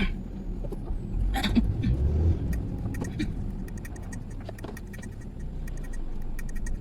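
Sounds inside a car: a low rumble that swells about one and a half seconds in, with scattered clicks and knocks.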